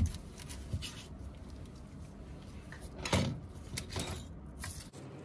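An opened iPhone 11 Pro Max being handled and set on a table: a sharp knock right at the start, a louder knock with a scrape about three seconds in, and small clicks and rubs from gloved fingers on the phone.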